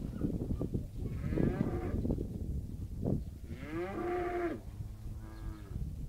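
Cattle mooing: three long drawn-out calls of about a second each, the second and third close together.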